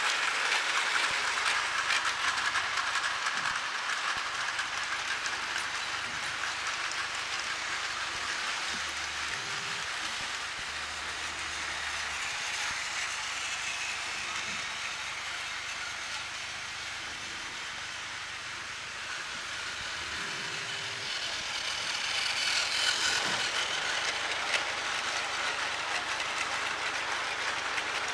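Battery-powered Plarail toy train running on plastic track: a steady motor whir with wheel clatter, fading somewhat through the middle and growing louder again after about twenty seconds as it comes round close.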